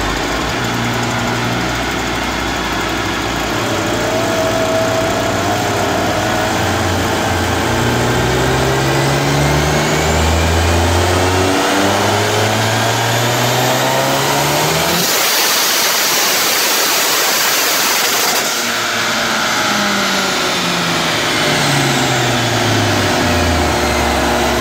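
Turbocharged Mazdaspeed3 four-cylinder on a chassis dyno in a full-throttle pull: the revs climb steadily for about fifteen seconds. A loud, rushing noise takes over for about three seconds at the top, which the uploader suspects was the tires spinning on the rollers. The revs then fall away as it coasts down.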